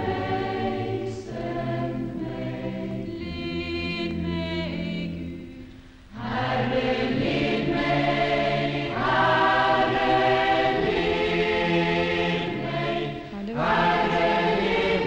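A choir singing a slow hymn in held chords, pausing briefly between phrases about six seconds in and again near the end.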